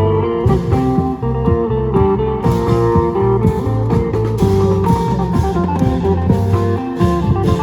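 Isan lam Phu Thai folk music: a plucked-string lead plays a repeating melody over a steady bass and a regular beat of long drums (klong yao).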